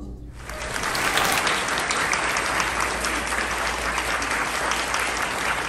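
Audience applause at the end of a choral piece, breaking out a moment in and holding steady.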